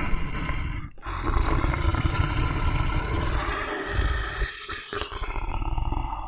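A large animal roaring in long, rough calls, with short breaks about a second in and again a little past the middle.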